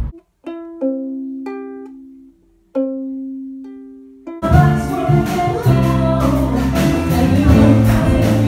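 Ukulele picked one note at a time, a short slow phrase of single notes that each ring and fade. About four seconds in, louder full-band music with a heavy bass line and a beat cuts in over it.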